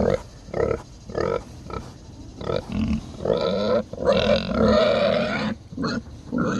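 Feeder pigs grunting: a run of short grunts, then longer, louder grunts from about three seconds in.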